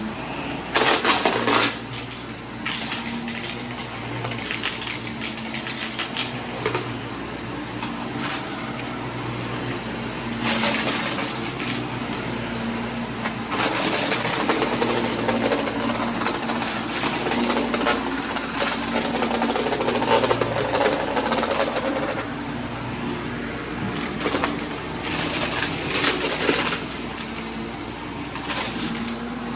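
Vacuum cleaner running with a steady motor hum, broken by bursts of rattling and crackling as it sucks up loose debris from a mess.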